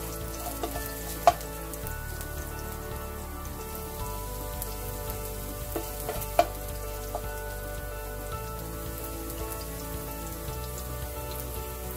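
Sliced garlic sizzling gently in hot oil in a nonstick wok, with a spatula knocking against the pan about a second in and again around six seconds in.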